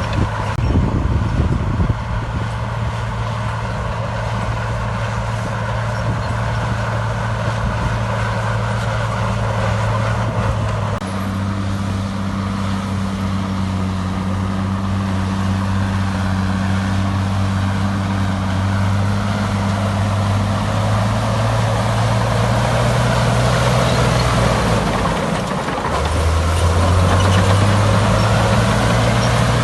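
Heavy diesel engine of earthmoving machinery running steadily, with clanking in the first couple of seconds. The engine note shifts about a third of the way in, drops briefly near the end and then picks up again under load.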